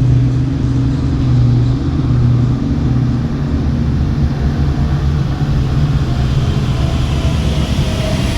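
Heavy diesel engines of a large mining excavator and haul truck running under load during truck loading: a steady, loud, low drone that swells and eases, with a higher engine note coming in near the end.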